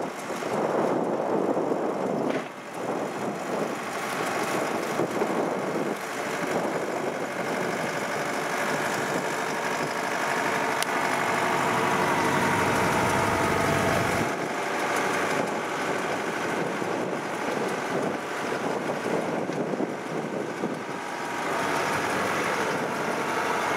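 Kubota DC93 combine harvester's diesel engine running steadily under load as the tracked machine climbs over a steep bank, swelling louder for a few seconds around the middle.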